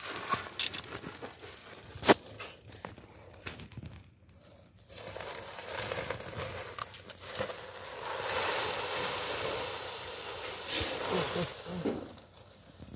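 Sack rustling and crinkling as wheat seed is poured from it into a seed drill's hopper, with a sharp click about two seconds in and a steadier hiss of pouring in the second half.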